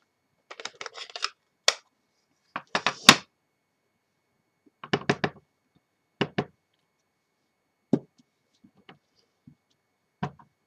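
Hand stamping: a stamp on a clear acrylic block is inked on an ink pad and pressed onto a card-covered chipboard cover. It gives about six groups of short clicks, taps and knocks, the loudest cluster about three seconds in, with quiet gaps between.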